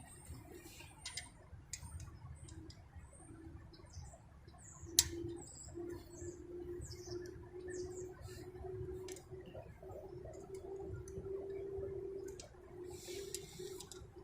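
Light metallic clicks from handling bolts and hand tools, one sharper click about five seconds in. Faint high chirps and a steady low hum run behind them.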